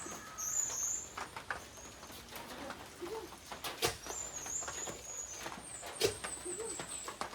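High-pitched animal chirping in quick trills, once at the start and again near the end, with a few sharp knocks about four and six seconds in.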